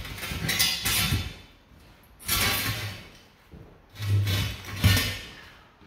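Heavy metal fireplace liner scraping and grating against the masonry of the firebox as it is worked loose by hand, in three rough scrapes about a second each.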